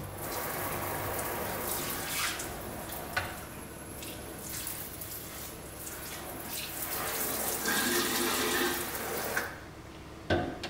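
Pull-down kitchen faucet sprayer running in spray mode, water spraying steadily into a stainless steel sink. The water stops about nine and a half seconds in, and a short knock follows near the end.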